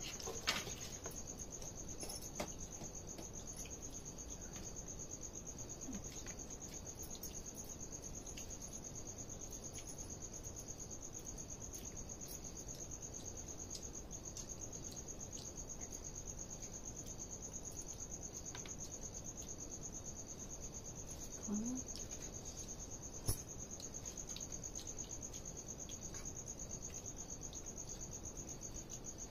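Crickets trilling in one steady, high, unbroken tone, with a few light clicks now and then.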